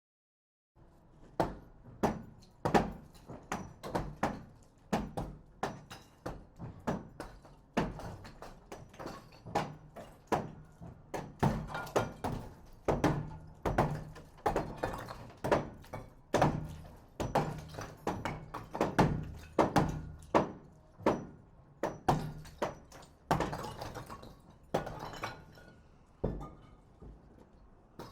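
Hammer striking wood over and over in irregular, dull blows, roughly one to two a second, with occasional quick double strikes.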